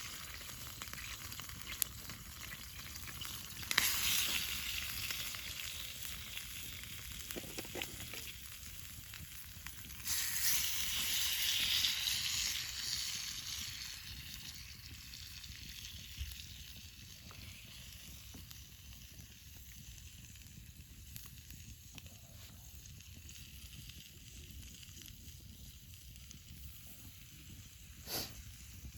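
Food frying over a campfire, a steady hissing sizzle that surges loudly about four seconds in and again, louder, around ten seconds in, then dies down.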